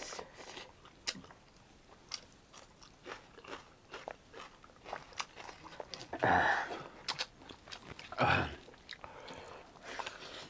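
A person chewing a mouthful of boiled pork and rice close to the microphone, with many small wet mouth clicks. Twice in the second half there is a louder, longer noisy mouth sound.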